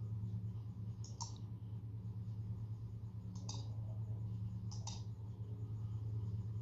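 Three pairs of short, sharp clicks, about two seconds apart, over a steady low hum.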